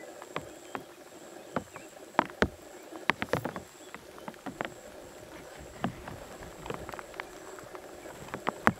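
A steady high insect drone with irregular sharp clicks and knocks, several of them louder, about two and a half seconds in, around three and a half seconds in, and near the end.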